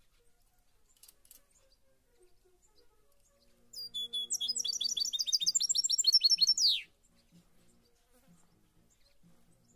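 A small songbird sings one fast trill of clear, high notes lasting about three seconds and ending in a falling note. It starts about four seconds in.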